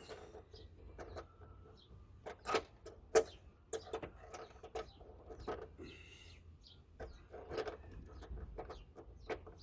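Irregular sharp clicks and knocks of metal tools and suspension parts being handled during a strut installation, with a short high chirp or squeak about six seconds in.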